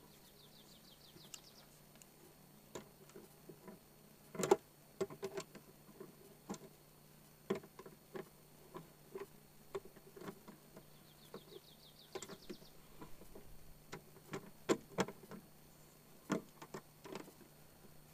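Irregular light clicks and metallic ticks of locking pliers and lock hardware as the retaining nut is tightened onto a cylinder lock in an RV baggage door; the loudest click comes about four and a half seconds in. A bird gives a short rapid trill twice, near the start and again about eleven seconds in.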